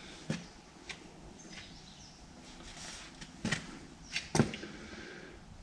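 A few short, sharp knocks and clicks of handling noise in a workshop, the loudest two about three and a half and four and a half seconds in, with quiet room tone between them.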